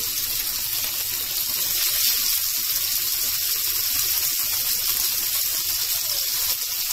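Thin slices of meat shallow-frying in oil in a pan, with a steady, even sizzle.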